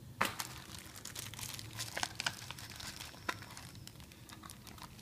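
Clear plastic wrapping crinkling and rustling in the hands as accessories are handled in a cardboard box, with irregular sharp crackles, the loudest about a quarter second in.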